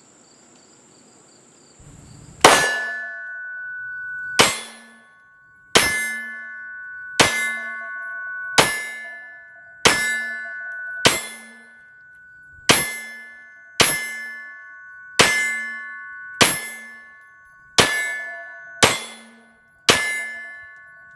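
Fourteen shots from a CZ P10C 9mm pistol, roughly one every one and a half seconds, starting about two and a half seconds in. Each shot is followed by the ring of a steel target being hit, which fades before the next shot.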